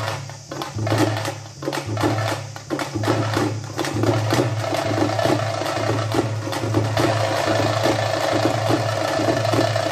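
Music with a steady percussive beat, about two to three beats a second.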